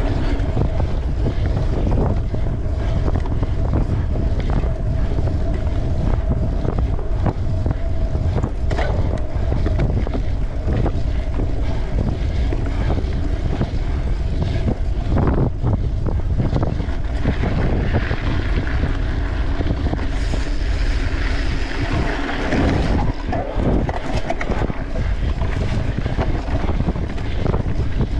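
Wind rushing over the microphone of a camera on a mountain bike ridden at race pace, with frequent knocks and rattles from the bike over rough ground. A brighter hiss comes up for a few seconds past the middle.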